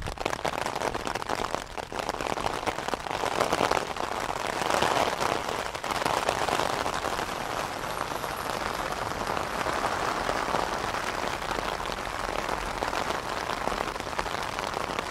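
Rain falling on a tent's fabric fly, heard from inside the tent: a dense, steady spray of small drop impacts that swells a little a few seconds in.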